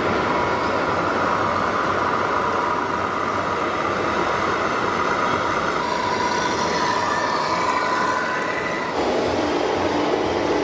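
Radio-controlled model trucks driving: a steady electric whine over a noisy hum. About nine seconds in it changes abruptly to a lower hum.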